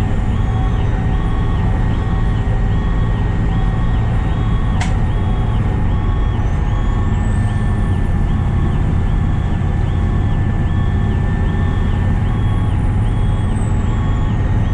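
Inside a fire apparatus cab on an emergency response: steady diesel engine drone under a siren wailing slowly up and down, with a short beep repeating about three times every two seconds. One sharp click sounds about five seconds in.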